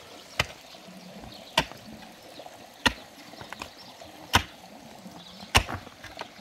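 Pickaxe striking stony ground: five sharp blows, about one every second.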